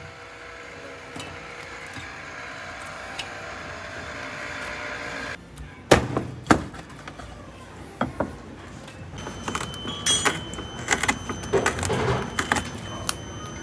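Background music that cuts off about five seconds in, followed by scattered knocks and then a busier run of clattering from kitchen work at a counter, with a faint steady high whine near the end.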